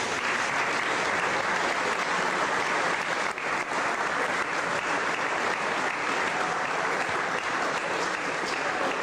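Crowd of spectators applauding, steady clapping from many hands.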